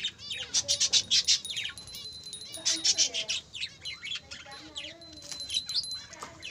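Budgerigars chattering and warbling: a busy run of short chirps, clicks and rapid rising and falling whistles, several birds at once.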